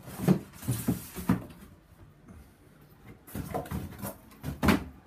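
Cardboard box and packaging being handled and moved aside: a few knocks and scuffs in the first second and a half, then another cluster later on, the last one the loudest.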